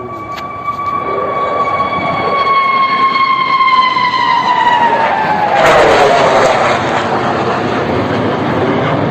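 Sukhoi Su-57 fighter jet flying past: a high engine whine that drops in pitch as it passes, under a rising roar that is loudest about six seconds in.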